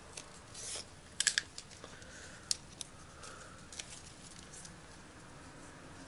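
Faint handling sounds of insulating tape being worked around a soldered wire joint: a short hiss of tape peeling under a second in, then a quick cluster of sharp ticks and a few single ticks, the last near the middle.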